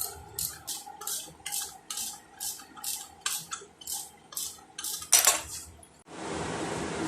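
Ratchet wrench being worked back and forth on a fastener, clicking in short metallic bursts about twice a second, with one louder, longer burst about five seconds in.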